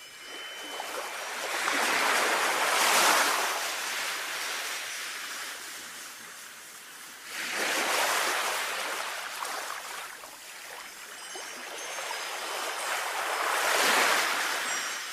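Sea waves washing onto a shore in three slow swells, each rising and falling away, with faint ringing wind chime tones lingering.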